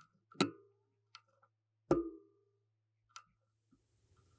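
Small sharp metallic clicks and taps of a screwdriver and tiny screws against a MacBook Pro's aluminium top case and keyboard plate as the replacement keyboard is screwed down. Two louder clicks with a brief ring come about half a second and two seconds in, with fainter ticks between.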